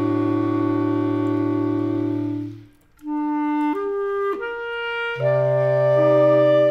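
Clarinet quartet of three B-flat clarinets and a bass clarinet playing a slow waltz. A held chord fades away about two and a half seconds in, a brief pause follows, then a melody of single notes enters, and the low bass clarinet comes back in with a full chord near the end.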